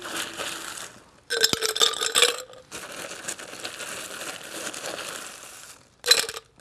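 Ice cubes being scooped up and clattering, in several loud bouts with a longer stretch of steady rattling and rustling between them, and a short sharp clatter near the end.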